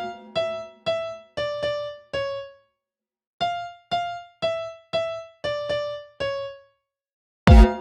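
Electric piano playing a sparse melody of single notes, each fading out, about two a second, with short pauses. Near the end a heavy electronic drum beat comes in.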